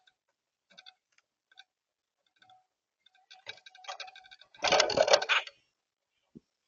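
Grackle giving a run of short, dry clicking calls, growing busier partway through, then a louder harsh rasping burst about five seconds in.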